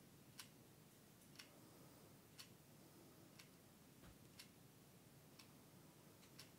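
A clock ticking faintly and evenly, about once a second.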